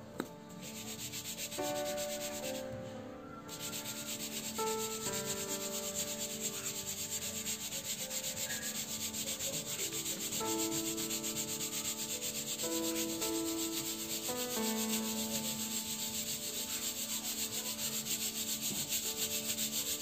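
Split urad dal grains being shaken in a metal sieve over a steel plate, a steady rhythmic rasping as the grains slide and rub on the mesh; the coarse, unbroken urad grains left after hand-quern splitting are being sifted out.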